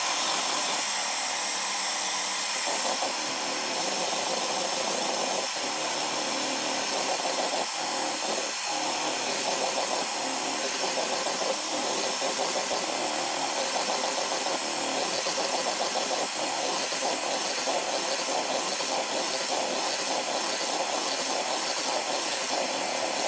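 Electric hand mixer running steadily, its beaters whipping liquid cream in a stainless steel bowl as it thickens.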